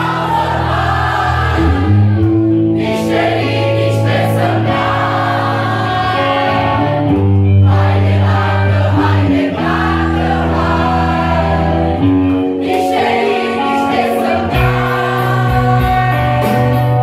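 A crowd of many voices singing along in chorus over a live band with electric guitar.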